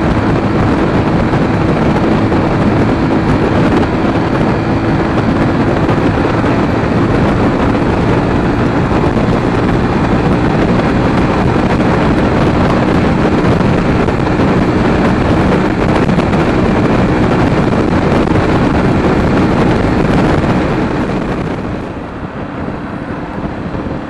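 Wind buffeting the microphone over the steady running of a Sinnis Terrain T125's 125cc engine while riding at speed. It gets noticeably quieter about 21 seconds in.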